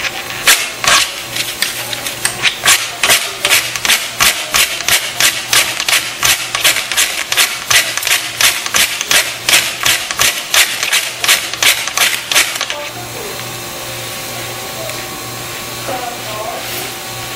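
Ferrocerium fire-starter rod scraped hard with a steel striker, a rapid series of rasping strikes about three a second throwing sparks onto a paper napkin to light it. The strikes stop about 13 seconds in.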